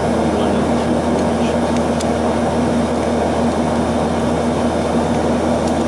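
Steady machine drone with a constant hum, unchanging throughout, with a few faint ticks over it.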